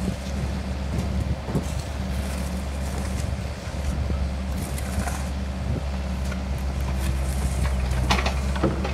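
Kobelco SK50 mini excavator's diesel engine running steadily, with a few sharp knocks and scrapes about eight seconds in.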